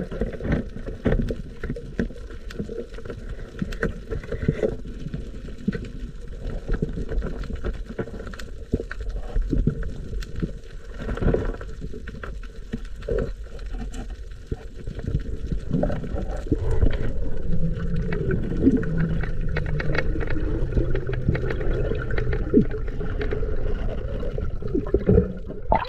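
Water sloshing and gurgling with many scattered knocks and clicks, growing louder a little over halfway through.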